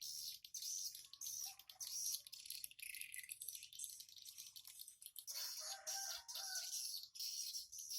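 Swiftlets twittering in a dense, rapid, high-pitched chatter. About five seconds in, a chicken calls for a second and a half.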